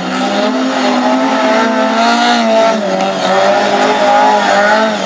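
Classic Hot Rod stock car engine held at high revs, its pitch wavering up and down as the car spins donuts, with the driven wheels spinning and scrubbing the tyres.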